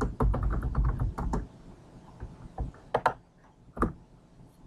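Computer keyboard typing: a quick run of keystrokes for about a second and a half, then a few single, louder key presses around three and four seconds in.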